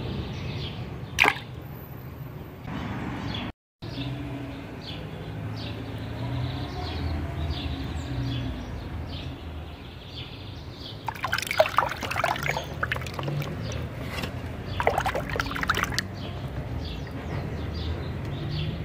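Muddy water dripping and splashing in a plastic tub as wet plastic toy dinosaurs are lifted out of it, with a livelier stretch of trickling and splashing about two-thirds of the way through.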